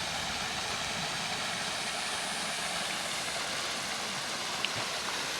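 Vehicle driving on a four-wheel-drive track: steady road and engine noise with a low rumble underneath.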